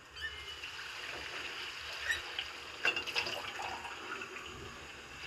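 Thin chicken curry gravy simmering in a pot on a gas burner, the liquid faintly bubbling, with a few small pops about two and three seconds in; water has just been added and the flame turned up to bring it to the boil.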